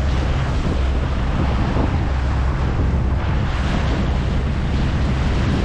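Wind buffeting the microphone over steady ocean water noise, a continuous low rumbling rush with no distinct events.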